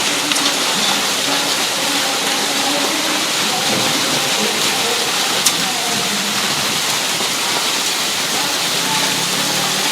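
Hail or frozen rain falling steadily: a dense, even pattering hiss of ice pellets striking surfaces, with a few sharper single clicks, the clearest about five and a half seconds in.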